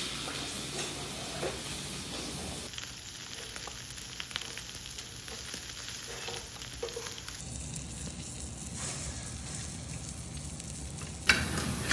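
Food sizzling in an oiled frying pan, with occasional light utensil ticks and a sharp knock near the end.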